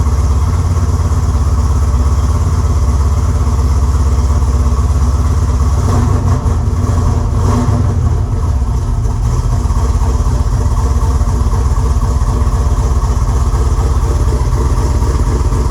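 A 6.2 litre GM LS V8 with a stage 3 camshaft idling on a new tune. The idle shifts about six seconds in. The engine still needs tuning to smooth it out.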